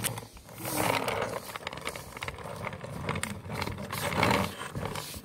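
Plastic toy car pushed across a wooden floor, its wheels rolling and rattling with many fine clicks, loudest about a second in and again about four seconds in.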